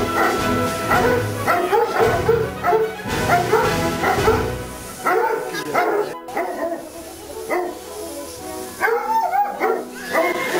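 A pack of tricolour French hunting hounds barking, many short overlapping cries rising and falling in pitch, with music playing over them.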